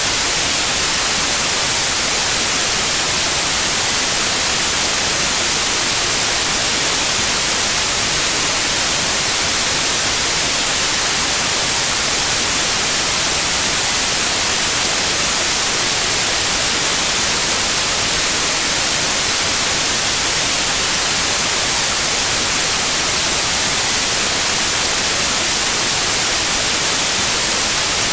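Synthesised white noise for tinnitus therapy: a steady, even hiss. A high-pitched 9645 Hz tone sounds over it for about the first five seconds, stops, and comes back near the end.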